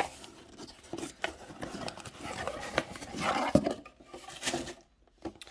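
Packaging being handled: rustling and scraping with scattered light knocks and clicks as a boxed vinyl figure in its plastic protector is taken out, settling down near the end.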